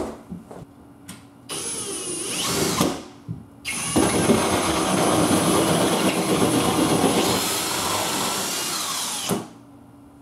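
Power drill cutting a 2.5-inch hole through drywall. After a few knocks it makes a short first run of about a second and a half, then a steady run of about five and a half seconds that cuts off suddenly near the end.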